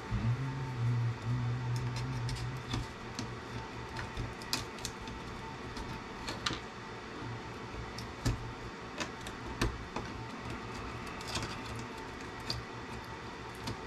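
Sharp, irregular clicks of side cutters snipping components off a CB radio's circuit board. A low drone sounds under the first few seconds.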